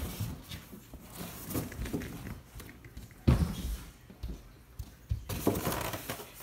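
Handling noise of packing around an iMac: rustling of the protective wrap and styrofoam, with two sharper bumps, one about halfway through and one near the end.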